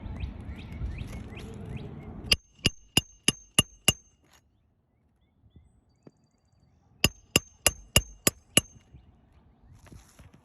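Hammer driving roofing nails back into asphalt shingles: two runs of six quick, ringing blows, about three a second, with a pause of a few seconds between. Before the first run there is a brief stretch of outdoor background with bird chirps.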